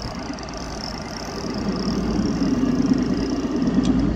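Boat's outboard motor running steadily, its hum growing louder about a second and a half in.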